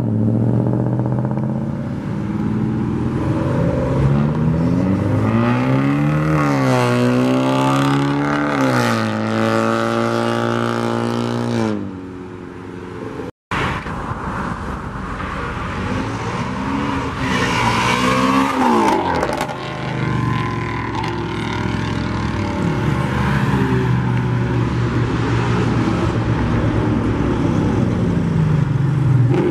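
Car engines accelerating hard as they pull away, revving up and dropping with each gear change. A few seconds in, one engine revs through several gears. Past the middle another revs up, then a steadier engine sound runs through the last part.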